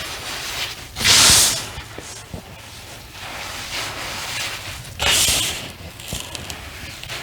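Soft reformed cornstarch chunks being crushed in the hand. There are two loud crunchy squeezes, one about a second in and one about five seconds in, with quieter crumbling and rubbing between them.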